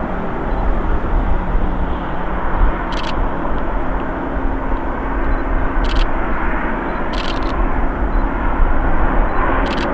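Business jet's twin rear-mounted turbofan engines on final approach: a steady rushing jet noise with a deep low rumble.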